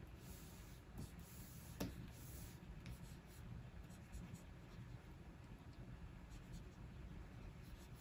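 Wacom Cintiq 24 Pro stylus nib scratching in short, faint strokes across the pen display's screen. There is a sharp tap of the nib just under two seconds in, and the strokes become lighter and sparser in the second half.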